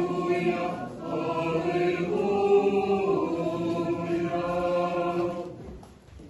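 Church choir singing Orthodox liturgical chant a cappella, in long held chords that fade out near the end.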